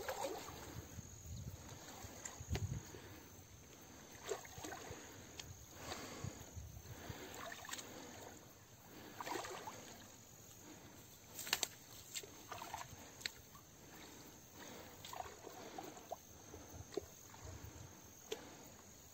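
Faint sloshing and swishing of water as a person wades through a shallow canal dragging a fishing net, with a few sharp clicks, the loudest about halfway through. A faint steady high insect chirring sits under it.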